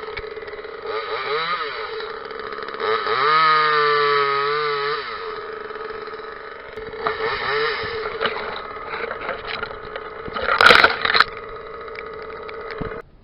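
Parker top-handle two-stroke chainsaw running at idle and being revved: it rises briefly, is held high for about two seconds, then blips again. A loud rough burst comes about two-thirds of the way through, and the sound cuts off suddenly near the end.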